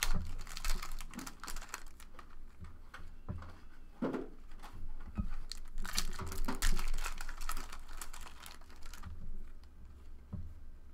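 Trading cards being flipped and slid through by hand, a quick run of light clicks and scrapes as a pack is sorted. The clicking comes in two busy spells, one right at the start and a longer one midway, and thins out near the end.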